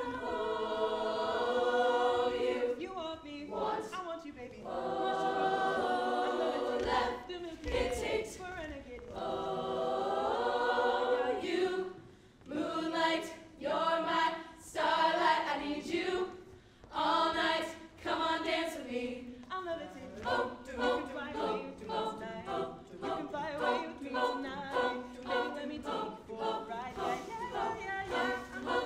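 Women's a cappella group singing a pop mashup into microphones, with no instruments. Held vocal chords at first, then from about twelve seconds in the voices turn to short, choppy rhythmic phrases.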